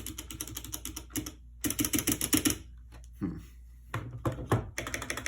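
Mechanical keyboard being typed on: a fast run of key clicks, a pause, another quick flurry, then a few single keystrokes.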